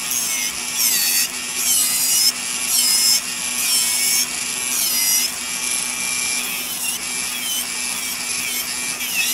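Electric nail drill grinding poly gel off a fingernail with a barrel-shaped bit: a steady motor hum under a high rasping whine that dips and recovers with each pass, about once a second.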